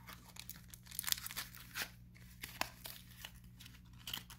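Foil-wrapped chocolate squares crinkling as they are pressed into a small cardstock box, with light paper scuffs as the box is handled. A scatter of short crinkles and ticks, a few louder ones about a second in and near the two-second mark.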